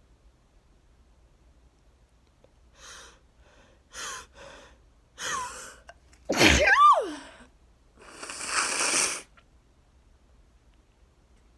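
A woman sneezing in a sneezing fit set off by freshly cut grass. A few short catching breaths build up, then comes one loud sneeze with a falling voiced 'choo', and about a second later a longer, noisy blast of breath.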